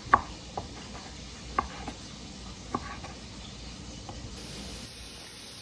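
A kitchen knife knocking on a cutting board while chopping vegetables: about five short, sharp knocks at uneven intervals in the first three seconds.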